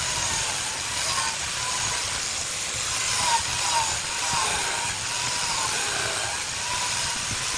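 Wood lathe running while a turning tool cuts a piece of jackfruit wood: a steady hiss of cutting over a motor whine that dips briefly several times as the tool bites.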